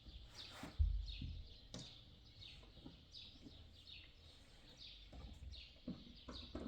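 Small birds chirping, a run of short falling notes repeated several times a second, with a dull low thump about a second in.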